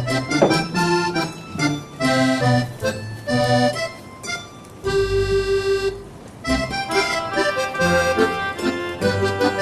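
Background music, an accordion-led traditional folk tune in quick short notes, with one long held note about five seconds in.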